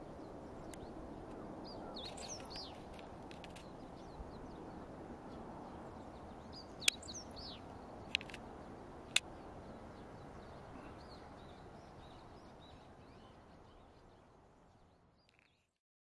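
A songbird singing short, quick chirping phrases, twice in the first half, with fainter calls later, over a steady outdoor hiss. A few sharp clicks come in the middle, and the sound fades out near the end.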